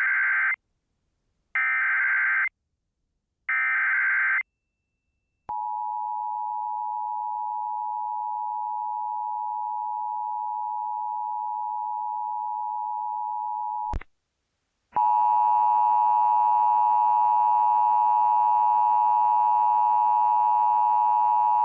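Three Emergency Alert System SAME header data bursts from a Sage EAS Endec, each a harsh warbling screech about a second long, a second apart. They are followed by the steady two-tone EAS attention signal for several seconds. After a click and a brief gap, a louder, buzzier alert tone with a heavy, distorted overtone sound starts and holds.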